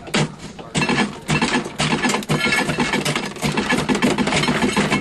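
Rapid, repeated chipping and knocking at a stubborn chunk of ice frozen in a freezer compartment, many strikes a second.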